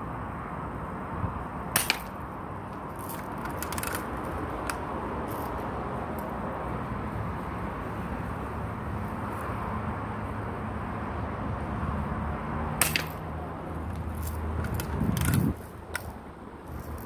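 Air rifle fired twice, two sharp cracks about eleven seconds apart, followed by a cluster of small metallic clicks as the rifle is handled and readied again. A steady background rumble and low hum run underneath, the hum stopping abruptly near the end.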